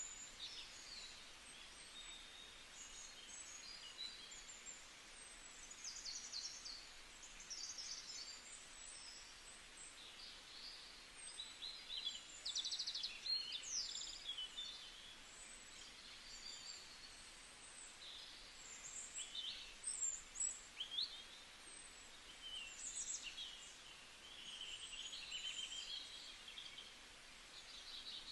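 Morning forest ambience: many small birds chirping and trilling, several at once, over a steady faint hiss.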